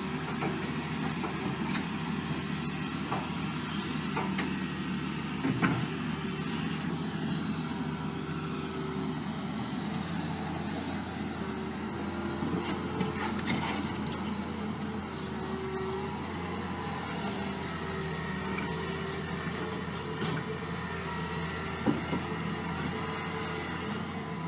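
Steady road-traffic noise of vehicle engines running, with one sharp knock about five and a half seconds in.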